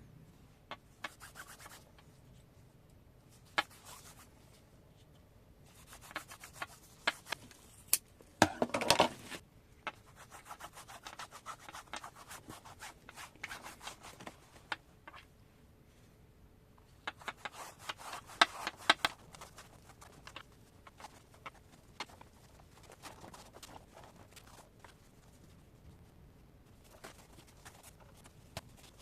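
Hand rubbing and scraping at the wallet's leather surface in intermittent spells, with scattered small clicks and taps; the strongest spell comes about eight seconds in.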